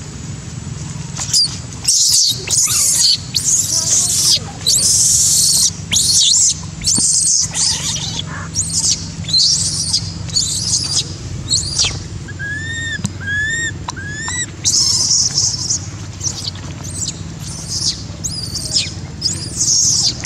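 Baby macaque monkey screaming in distress, a long run of shrill, high-pitched cries, broken about two thirds of the way through by three shorter rising-and-falling squeals.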